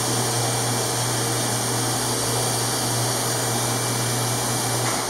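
Surgical smoke evacuator running steadily: a constant suction hiss over a low hum, drawing off the smoke as the CO2 laser vaporises the skin growth.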